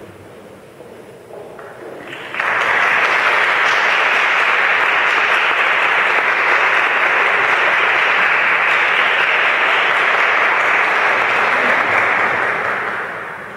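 Audience applauding, starting suddenly about two seconds in, holding steady, then dying away near the end.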